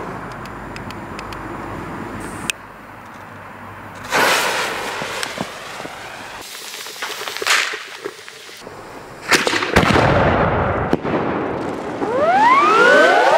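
A 200 mm (8-inch) aerial firework shell. Its fuse hisses and spits at the mortar tube with a few louder rushing spurts, a loud bang about nine seconds in launches it, and near the end it bursts overhead with several whistles rising and then falling in pitch.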